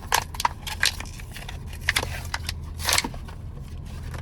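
Klein HVAC 8-in-1 screwdriver being handled, with a string of sharp clicks and light scrapes as its parts and bits are worked. A low hum sits underneath.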